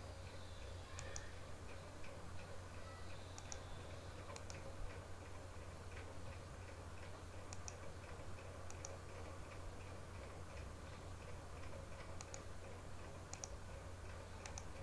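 A computer mouse clicking about eight times, each click a sharp press-and-release pair. Underneath runs a faint, steady, rapid ticking and a low electrical hum.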